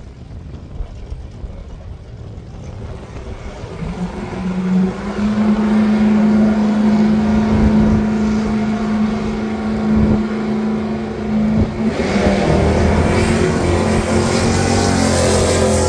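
Drag racing cars at the start line of a drag strip: faint at first, then from about four seconds in an engine held at a steady high note. About twelve seconds in it turns into a louder, fuller engine sound as the cars launch down the strip.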